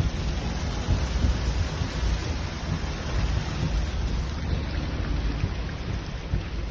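Floodwater rushing, a steady dense noise with a heavy low rumble.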